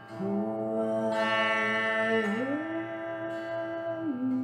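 A woman's voice singing long held notes over the steady drone of a tamboura (tanpura). The voice holds one note, slides up to a higher one about two seconds in, then steps down slightly near the end.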